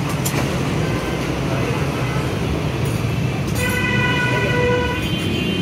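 Steady road-traffic rumble with a vehicle horn sounding for about a second, about three and a half seconds in, and a second, higher-pitched horn starting near the end.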